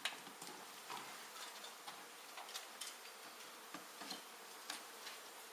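A mass of honey bees buzzing steadily, with light, irregular clicks and ticks scattered throughout, a few a second.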